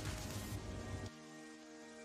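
Background music with sustained, held notes. For about the first second a rough noise also runs under it, then cuts off suddenly, leaving only the music.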